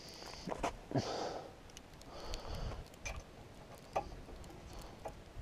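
Faint scattered clicks and light taps from handling a metal light pole and its set screws, with a few soft breathy hisses between them.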